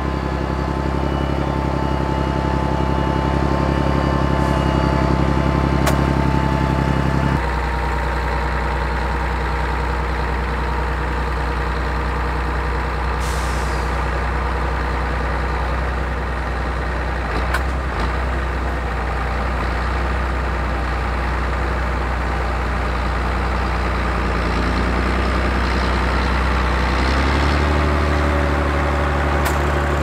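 Diesel engines of John Deere tractors and a wheel loader running under load, a steady heavy drone whose pitch shifts about a quarter of the way in and again near the end. A short hiss of air about halfway through and a brief knock soon after.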